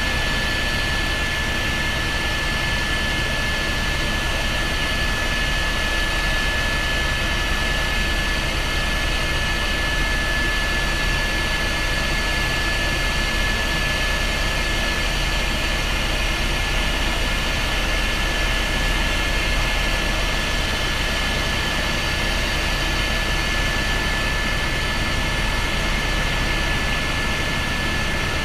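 Helicopter in steady flight heard from inside the cabin: the constant drone of the turbine engine and rotor, with a steady high whine held through.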